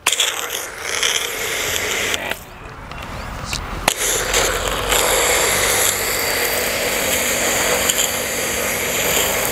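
JPT 1800-watt electric pressure washer running and spraying water through the foam cannon's nozzle, a loud steady spray over a constant motor hum. The spray drops away about two seconds in and comes back strongly about four seconds in.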